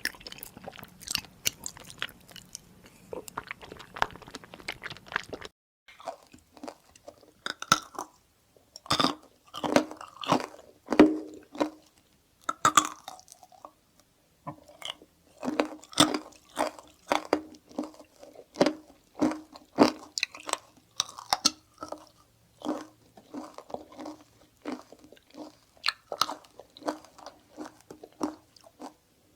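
Close-miked eating: crunchy food being bitten and chewed, with rapid crisp crunches. About five seconds in, the background hiss drops away and the crunching goes on with sharper, spaced-out bites.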